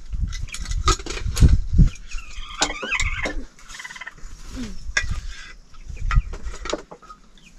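Short pitched calls, most heard about 2.5 to 3.5 seconds in, among scattered sharp clicks, knocks and low thumps.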